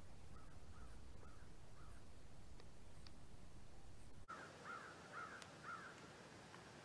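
Crows cawing: a few faint caws in the first second or so, then, after the low background rumble cuts off abruptly about four seconds in, a quick run of four louder caws.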